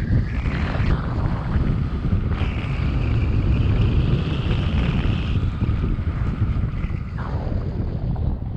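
Wind rushing over an action camera's microphone during a tandem paraglider flight: a steady, heavy low rumble with a higher hiss on top.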